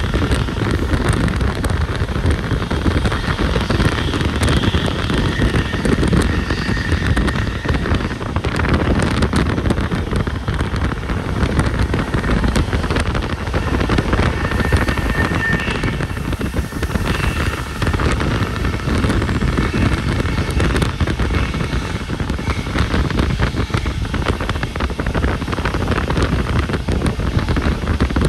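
Loud, steady wind buffeting on the microphone, crackling, over a low rumble.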